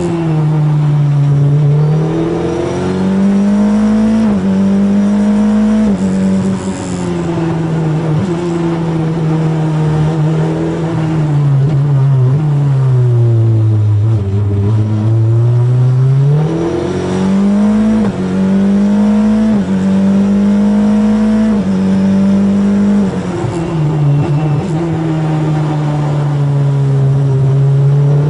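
Crawford FL15 formula car's engine heard from the cockpit at speed on a track, revving up through the gears with a sudden pitch drop at each upshift. About halfway through, the pitch falls away as the car slows for a corner, then rises again as it accelerates out through further upshifts.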